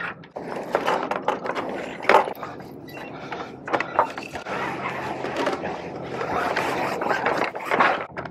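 Spinnaker being hoisted on a small racing yacht: the halyard is hauled hand over hand and run around a winch, with rope rustling and scraping and irregular knocks from lines and deck gear.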